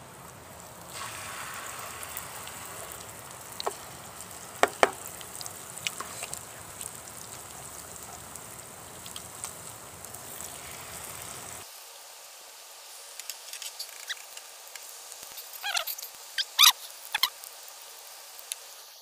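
Corn pancakes sizzling in hot oil in a frying pan: a steady hiss with scattered sharp pops, and a cluster of louder pops and crackles near the end.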